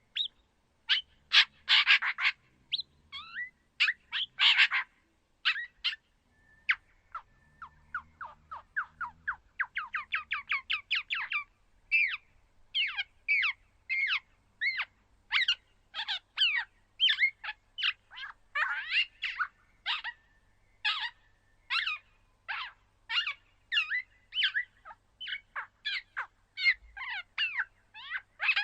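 Speculative dinosaur call for Balaur bondoc, built from edited recordings of red-backed shrike and bearded reedling calls. It is a rapid series of short chirps, mostly falling in pitch, with a few louder, harsher notes and a quick, evenly spaced run of chirps.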